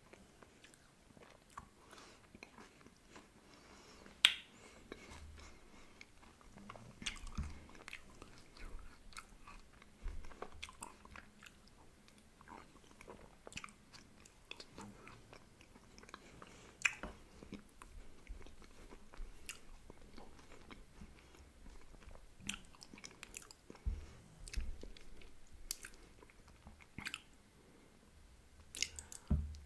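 Close-miked eating of ice cream with crunchy wafer pieces: wet chewing and biting with mouth noises, broken by scattered sharp clicks and crunches, the loudest about four seconds in, about seventeen seconds in and near the end.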